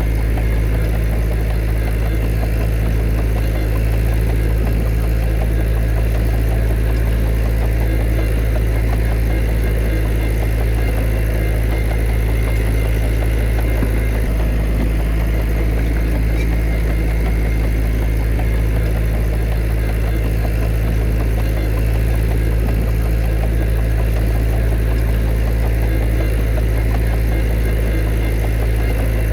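Heavy diesel engine of an earthmoving machine running steadily, a deep even drone with no revving or breaks.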